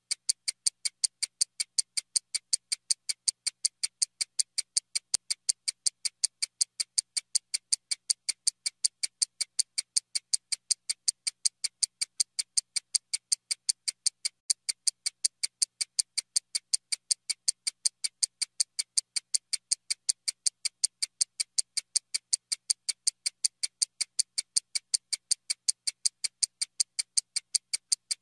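Steady, evenly spaced high-pitched ticking, about three ticks a second, with no change in pace.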